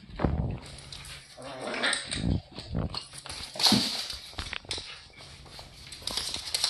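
Two dogs play-fighting, an eight-week-old Boston terrier puppy and a one-year-old dog: irregular dog vocal noises in uneven bursts, the loudest about two and a third and nearly four seconds in.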